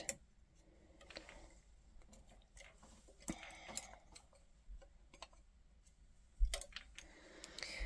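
Faint, scattered clicks and light taps of the metal latch needles and parts of an Erlbacher Gearhart Speedster circular sock knitting machine being adjusted by hand, with a louder tap about six and a half seconds in.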